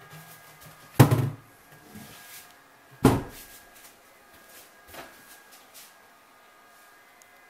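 Two loud knocks about two seconds apart, then a fainter third, each with a short echo in a small room.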